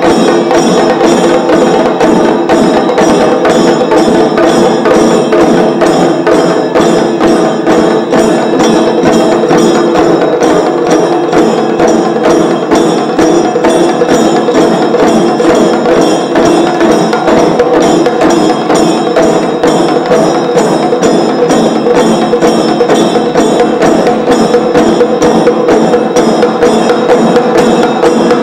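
An ensemble of chenda drums played with sticks in a fast, unbroken stream of strokes, with steady ringing tones under the drumming.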